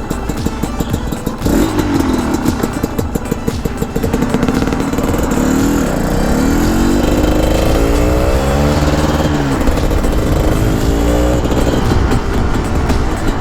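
Honda CRM250R's two-stroke single-cylinder engine running and revving, its pitch rising and dropping back several times, most often between about six and ten seconds in.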